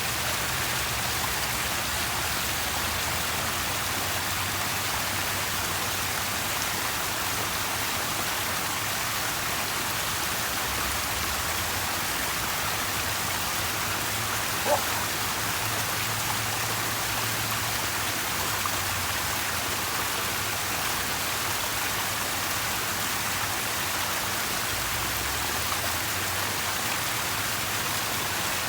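Steady rushing and splashing of running water from a garden water feature, with a faint low hum beneath it and a single short click about halfway through.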